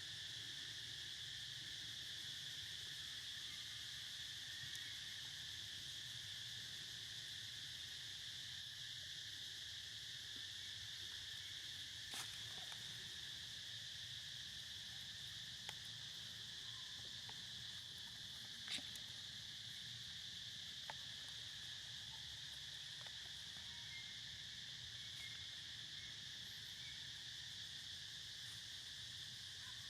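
Steady, high-pitched chorus of insects, with a few faint sharp clicks.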